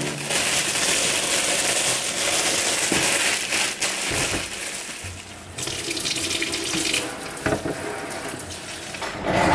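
Kitchen tap running, a steady stream of water splashing into a sink; it dips for a moment about halfway through, then carries on.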